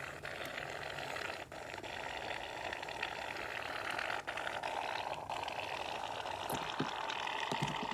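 Aerosol can of shaving cream spraying foam in one long steady hiss, dipping briefly a couple of times.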